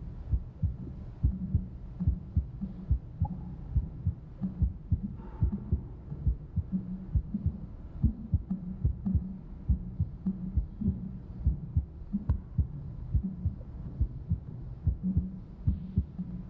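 A fast, steady run of low, muffled thumps, two or three a second, over a faint hum.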